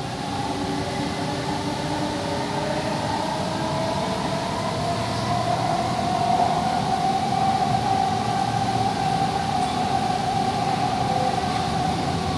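Kolkata Metro East-West Line train heard from inside the carriage as it picks up speed: a steady electric whine over the running rumble and rush, the whine climbing a little in pitch and growing louder about five seconds in, then holding.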